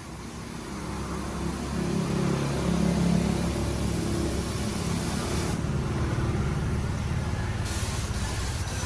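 Motorcycle engine running, growing louder over the first couple of seconds and then holding steady.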